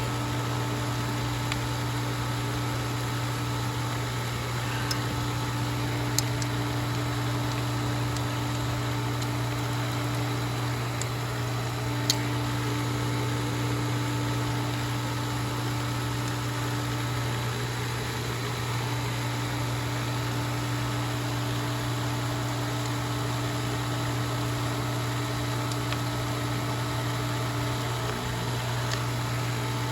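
Pool pump's electric motor running with a steady hum, with a couple of faint ticks.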